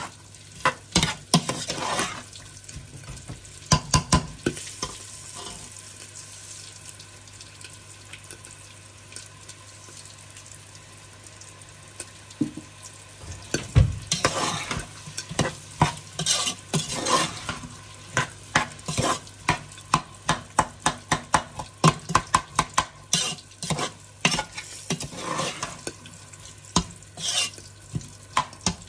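Food sizzling in a hot pan while a spoon stirs and scrapes against the pan. The scraping is sparse for the first few seconds, eases off, then comes in fast, repeated strokes through the second half.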